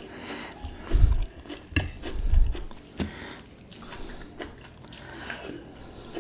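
Close-up eating sounds: a mouthful of noodles being chewed, with a few sharp clicks of a metal fork and spoon against a ceramic bowl and some low dull thumps in the first half.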